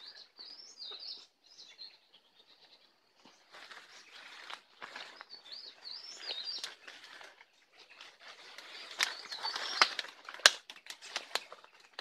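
A small songbird, which the recordist takes, without certainty, for a leaf warbler (cikrak daun), sings high, wavering chirpy phrases twice: once at the start and again about five seconds in. In the last few seconds, leaves and twigs rustle with a run of sharp clicks, the loudest about ten seconds in, as the brush is pushed through.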